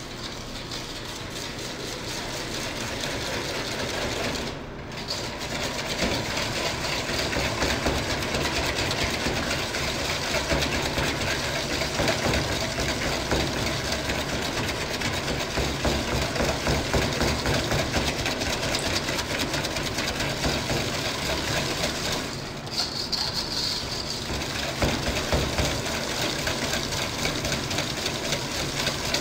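Wire balloon whisk beating eggs and sugar in a stainless steel bowl: a rapid, steady rhythmic clatter and scrape of the wires against the metal, pausing briefly twice.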